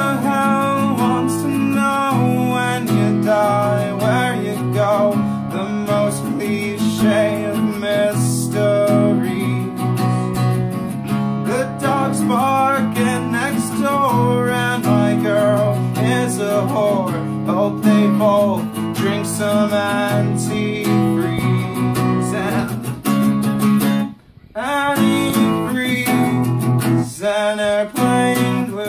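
A man singing while strumming an acoustic guitar, a solo song. The playing breaks off for a moment a few seconds before the end, then carries on.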